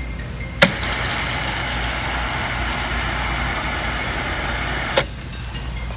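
Soda fountain dispenser clicking on about half a second in, then a steady hiss of soda pouring into a foam cup for about four seconds, ending with a click as the valve shuts off.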